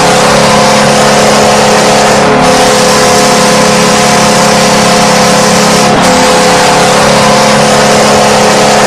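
NHL arena goal horn sounding one long, steady blast of several low tones held together, over a cheering crowd.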